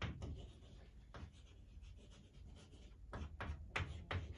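Writing by hand: a series of short scratchy strokes, sparse at first and coming quicker and louder about three seconds in.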